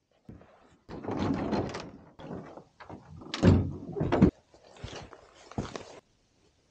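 A canoe being hauled out of the water onto the shore: the hull scrapes over ground and rock, with a loud knock about three and a half seconds in and a few more knocks. The sound cuts off suddenly near the end.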